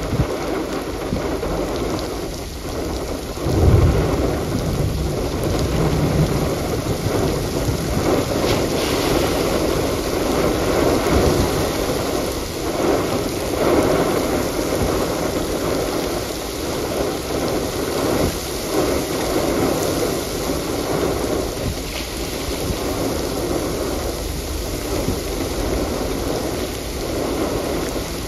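Rain pouring steadily in a thunderstorm, with a low rumble of thunder swelling about four seconds in.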